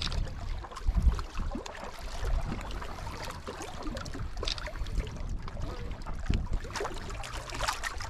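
Wind noise on the microphone in gusts, loudest about a second in, over small waves lapping against the rocks of a lakeshore.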